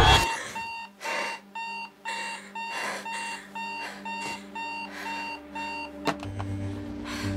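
Digital alarm clock beeping about twice a second, with bedding rustling. Just after six seconds a click cuts the beeping off as the alarm is switched off.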